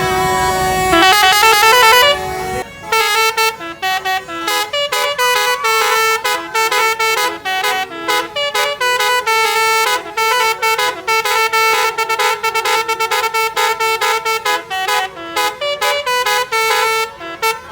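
Basuri musical bus horn playing a tune: a held note, a quick warbling run, then a long run of rapid short notes from about three seconds in.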